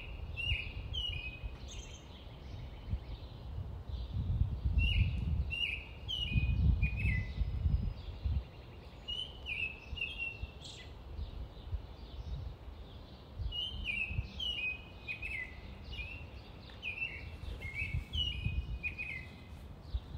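Bird chirping over outdoor ambience: short notes that drop in pitch, coming in quick clusters. A low rumble rises under it about four to eight seconds in.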